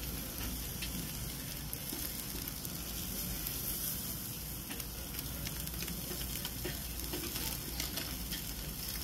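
Chicken leg quarters sizzling steadily on a kettle grill's grate, with scattered small crackles.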